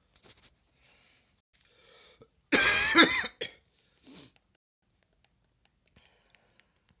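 A person coughing once, loudly, about two and a half seconds in, with faint breaths and small noises around it.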